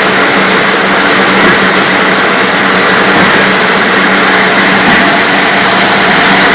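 Machinery of a plywood veneer peeling line, around a spindleless rotary veneer lathe, running with a loud, steady drone and a constant hum.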